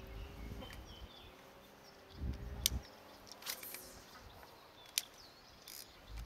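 Small birds chirping over quiet open-water ambience, with two sharp clicks and a few low bumps and rustles from gear being handled in a kayak.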